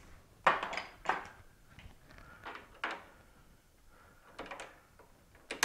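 Several separate metallic clunks and clanks, some with a brief ring, from steel tooling being handled and swapped on a metal lathe's tool post. The first, about half a second in, is the loudest.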